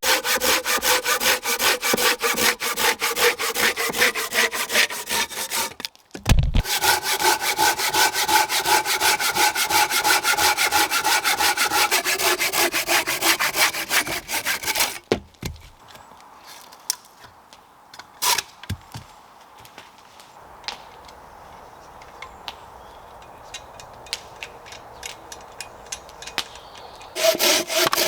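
Large Silky hand saw cutting through wood with fast, even strokes, in two long runs with a short break about six seconds in. From about fifteen seconds in there are only quieter scattered knocks, and the sawing starts again near the end.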